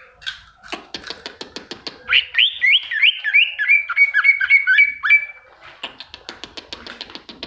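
A cagor songbird singing: rapid clicking chatter, then a run of about ten clear whistled notes, each sliding in pitch, at roughly three a second, then more rapid clicking near the end.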